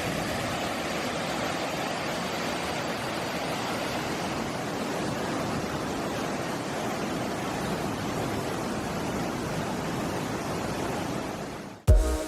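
Steady rush of water falling over the Mae Sa Waterfall cascades. Near the end it cuts off suddenly and background music with a steady beat comes in.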